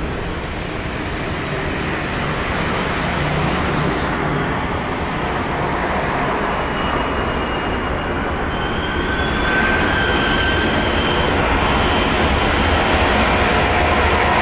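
Jet engines of a Boeing 777-300ER on the runway: a steady roar that grows slightly louder, with a high whine over the middle of it.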